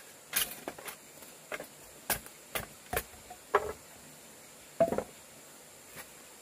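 Irregular short knocks and taps, roughly one every half-second to second, with a brief clattering cluster about five seconds in.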